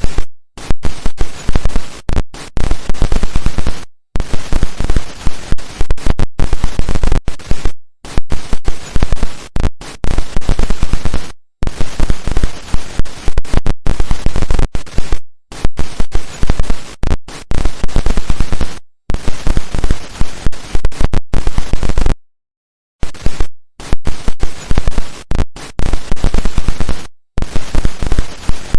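Digital glitch sound effects: loud, harsh stuttering noise that jumps rapidly in level, breaking off abruptly into short silences every few seconds before starting again.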